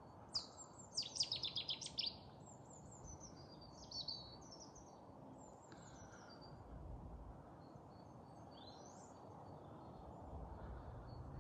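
Small songbirds singing and calling over a steady low background hum of open country. About a second in comes a fast run of about eight high notes, followed by scattered high chirps, short trills and one rising call.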